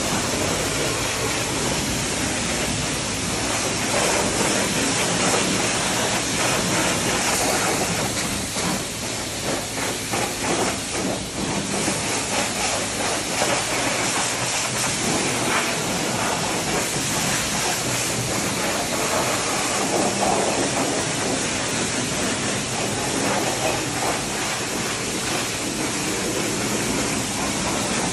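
Pressure washer spraying water at high pressure onto a mud-covered dirt bike: a steady, loud hiss that wavers in loudness around the middle.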